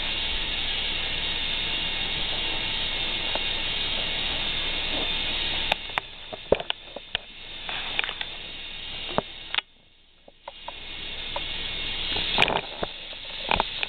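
Motorized chain lift of a plastic toy roller coaster running with a steady whirring clatter as it hauls the car up the lift hill. About six seconds in the steady whir stops, followed by a run of sharp clicks and knocks, a moment of near silence, then the whir builds again.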